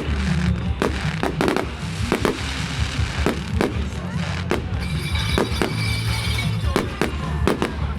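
Aerial fireworks going off in quick succession, a dozen or more sharp bangs over a low rumble, with a hissing crackle about five seconds in.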